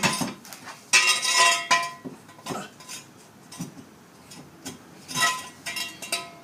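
Steel jack stand being handled and set under a vehicle: metal clanks and clinks with a brief ring, in several short bursts, the loudest about a second in.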